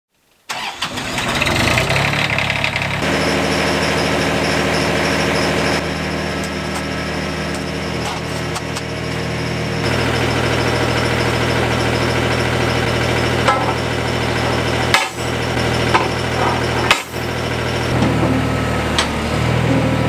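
Gehl 1620 mini skid steer's small Isuzu diesel engine starting about half a second in, then running steadily. It runs stronger from about ten seconds in, and the sound drops out briefly twice near the end.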